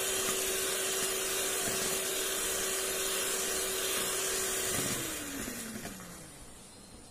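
Electric hand mixer running steadily, its beaters whipping eggs and powdered sugar in a plastic bowl. About five seconds in the motor is switched off and its whine falls in pitch as it winds down.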